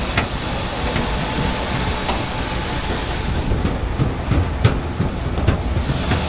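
Steady rumble and high whine of jet aircraft noise on an airport apron, with footsteps knocking on metal boarding stairs, most of them in the second half.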